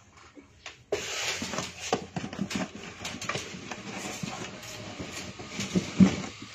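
Kitten scrabbling at and in a cardboard box: a busy run of rustling, scratching and light knocks on the cardboard that starts about a second in, with a sharper knock near the end.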